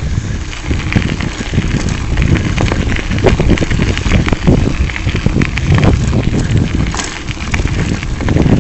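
Bicycle tyres rolling over a loose gravel path with a continuous dense crackle, under a steady rumble of wind on the microphone.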